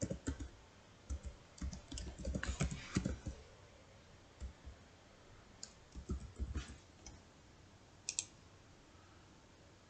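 Computer keyboard keys being typed in uneven bursts of clicks over the first seven seconds as a password is entered, then a single sharper click about eight seconds in, a mouse click on a login button.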